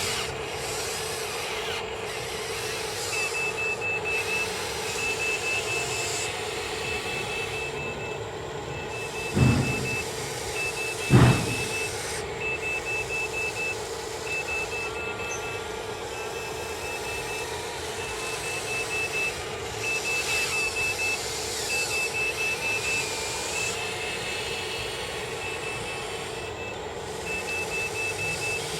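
RC truck's reversing beeper sounding in repeated bursts of rapid high beeps over a steady motor hum. Two loud knocks come near the middle.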